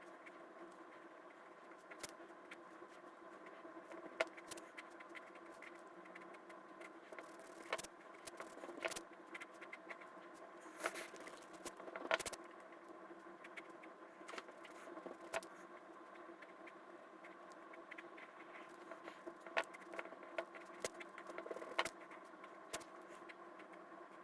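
Light, irregular clicks and taps of someone drawing at a computer, over a faint steady hum with a few held tones. The clicks come more often in the middle of the stretch.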